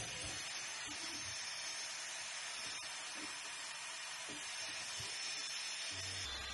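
Steady airy hiss of a Creality Falcon2 laser engraver's air assist and fans running, with a few faint soft knocks as the machine is handled. A low hum comes in near the end.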